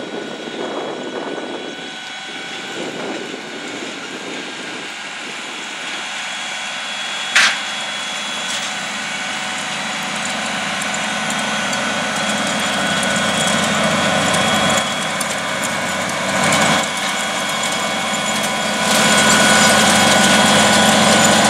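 Case IH Magnum tractors' diesel engines running under load in the field, growing steadily louder as the large tractor pulling a 24-row planter draws near, with a steady high-pitched whine over the engine noise. A single sharp click about seven seconds in.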